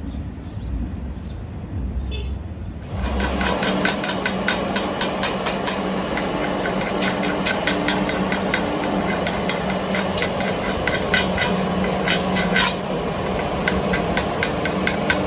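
Low rumble, then about three seconds in a stick-welding arc is struck with a 7018 electrode and runs as a steady crackle full of sharp pops over a low hum, dropping briefly once near the end.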